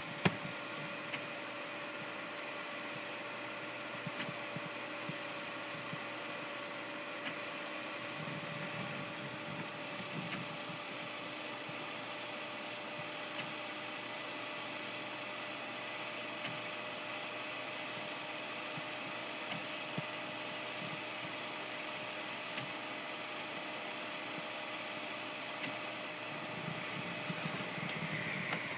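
MendelMax 3D printer standing still with its fans running in a steady hum and a constant high whine, with a few faint clicks; the print head is not moving because the printer has frozen mid-print.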